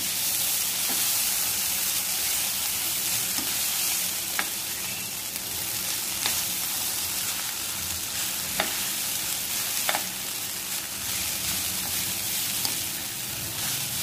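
Egg noodles sizzling in a hot wok as they are stirred and tossed with wooden chopsticks, a steady hiss, with the chopsticks clicking against the pan a few times.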